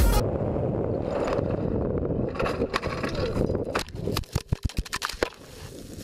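Polaris RZR Turbo UTV crashing off a cliff at speed, heard from inside the cab. A steady rushing rumble for the first couple of seconds, then a rapid string of hard impacts and crunching, heaviest about four to five seconds in, as the car lands and tumbles.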